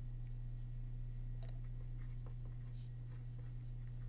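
Marker writing on paper: faint, irregular scratching strokes over a steady low electrical hum.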